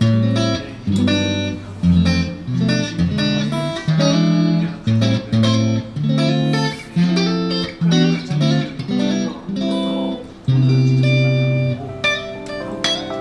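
Solid-body single-coil electric guitar played through a Marshall JVM amplifier: a phrase of picked single notes and chords, with one note held for over a second about ten and a half seconds in. It is the repaired, restrung guitar being test-played.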